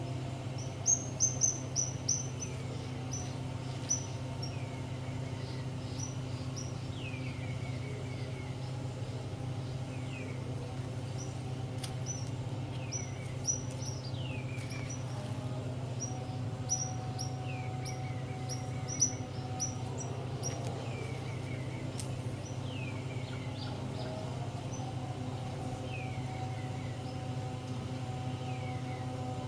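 Small birds chirping: quick high chirps in clusters and a short falling trill repeated every two to three seconds, over a steady low hum.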